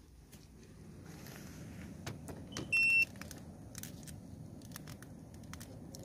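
A single short electronic beep about three seconds in, the loudest sound, over small clicks and rattles and a low steady hum that builds from about a second in.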